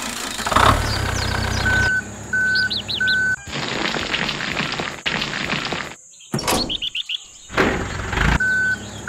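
Added truck sound effects: an engine rumble with a reversing beeper sounding three short evenly spaced beeps, then a long hiss of sand pouring off a tipping dump-truck bed, cut twice, with short bird chirps laid over it.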